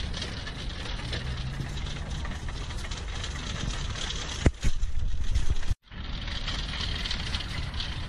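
Wire shopping cart rolling and rattling over asphalt, with one sharp louder knock about four and a half seconds in. The sound cuts out for a moment near six seconds.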